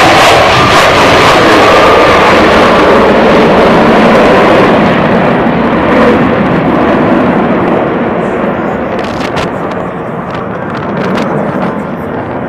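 Military jet fighters flying low in formation, their jet engines very loud with a thin whine over the first few seconds, then fading steadily as the jets fly away.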